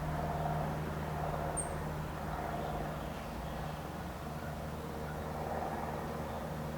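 Steady hum of road traffic, with one very brief high chirp about a second and a half in.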